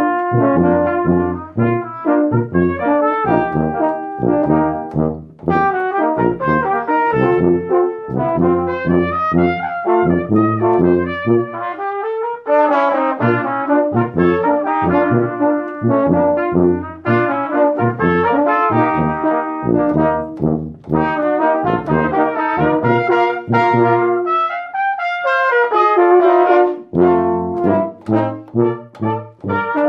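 Live brass ensemble playing: trumpets and trombones over a low bass part, in quick, rhythmic notes. The low bass part drops out briefly a couple of times.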